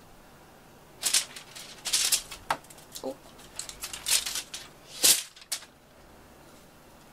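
A cat toy rattling and rustling in a quick, irregular run of sharp taps and scratchy crackles as it is batted and dragged on a wooden cat-tower shelf.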